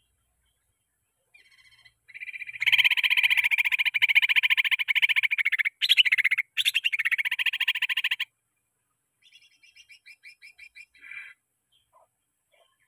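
Green leafbird (cucak ijo) singing: a loud, very fast trill of rapidly repeated notes starting about two seconds in and lasting some six seconds, broken twice, then a softer string of quick separate chirps and a few faint ticks near the end.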